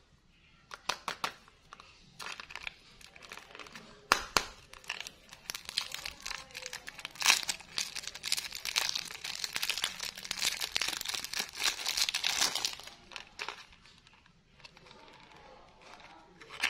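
Clear plastic cellophane wrapper being torn and peeled off a small cardboard box of bubble gum: a few sharp crackles, then dense crinkling that is loudest in the middle and dies away about three quarters of the way through.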